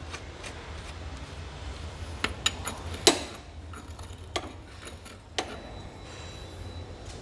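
Sharp metal clinks and taps of a hand tool and screws being worked on a motorcycle's clutch cover, about half a dozen, the loudest about three seconds in, over a steady low hum.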